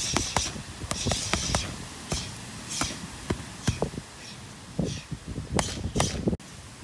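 Boxing gloves striking focus mitts in quick, irregular combinations: a run of sharp slaps, some in rapid pairs, that cuts off suddenly near the end.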